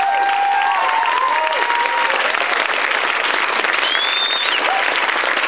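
Audience applauding steadily, with shouts and whoops over the clapping, including one high call about four seconds in.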